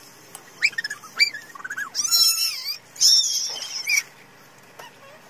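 High-pitched animal calls: a few short rising-and-falling cries, then two longer, loud warbling calls about two and three seconds in, ending about four seconds in.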